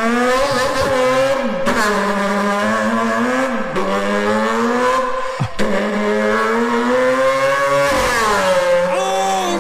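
A person imitating a race car engine with the voice: a steady buzzing engine note, broken every two seconds or so by a short drop in pitch like a gear change.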